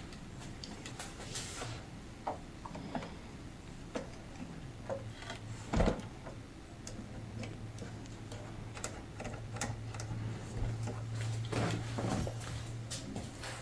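Scattered light clicks and knocks of hands, tools and clamps working on a wooden guitar body during a glue-up, with one louder knock about six seconds in. A steady low hum comes in about halfway through.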